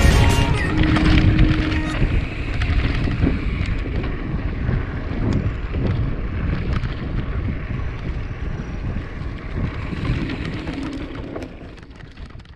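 Wind buffeting the camera microphone on a mountain bike riding a dirt trail, with the rumble and rattle of tyres and frame over rough ground. It fades out near the end.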